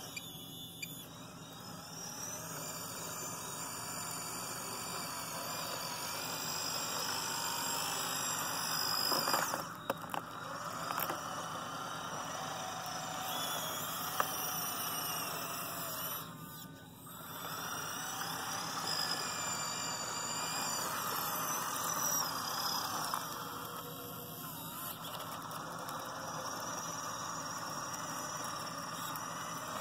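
Small electric motors and gearboxes of a radio-controlled Cat 963 track loader model whining, the pitch gliding up and down as it drives on its tracks and works its bucket. The whine drops away briefly about halfway through, then picks up again.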